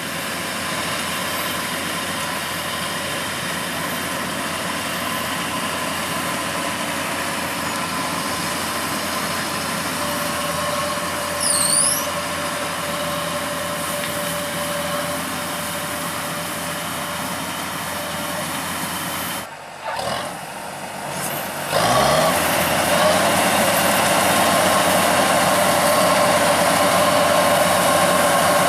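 Kubota DCX 100 rice combine harvester's engine running steadily as the machine travels. A short high chirp comes about twelve seconds in. Near the end the engine briefly drops away, then comes back louder, rising in pitch.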